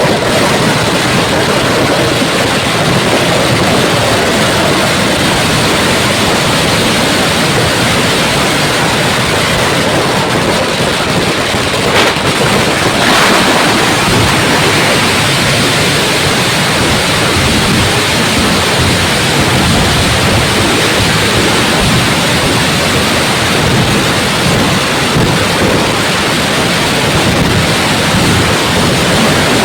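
Fireworks crackling and banging in a dense, unbroken barrage, with a sharper crack about twelve seconds in.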